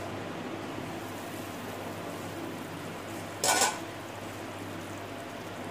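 Chicken stock simmering in a pot under a glass lid, a steady bubbling hiss with a low hum behind it; about three and a half seconds in, a short clatter as the glass lid is lifted off the pot.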